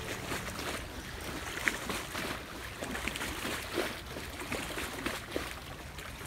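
Small waves lapping and splashing against a grassy bank, with short irregular splashes over a steady wash of water noise.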